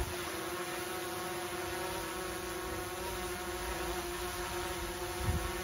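Camera drone hovering overhead, a steady buzzing whine from its propellers.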